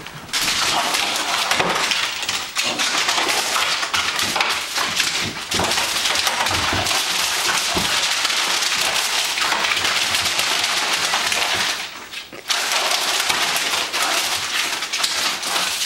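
A small white terrier tearing at and shaking mail, giving a dense, steady crinkling and crackling of paper and plastic, with a brief lull about twelve seconds in.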